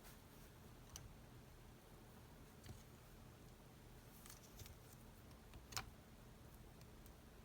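Near silence with a few faint, sharp clicks of small metal parts and tools being handled during engine disassembly, the loudest click a little before the end.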